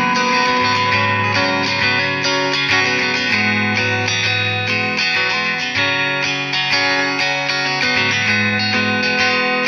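Fender Modern Player electric guitar played through a Line 6 POD HD500X multi-effects processor, picking a song's notes and chords without a break.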